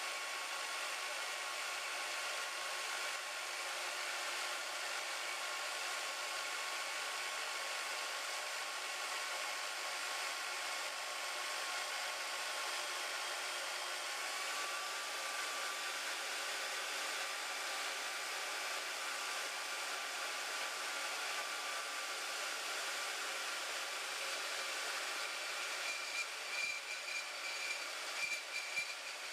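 Harbor Freight band saw running steadily with its blade cutting through metal stock, a constant hiss with a faint steady whine. It turns uneven near the end.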